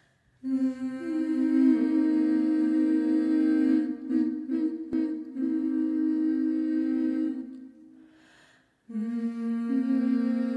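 Wordless humming voices holding long notes in two-part harmony, stepping between chords. They pause briefly for a breath about eight seconds in, then take up a new held chord.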